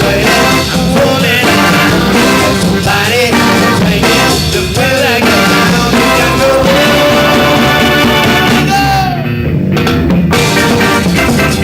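Live band playing a rock song with drum kit and singing, with one long held note in the middle. About nine seconds in, the band briefly breaks and the cymbals drop out for about a second.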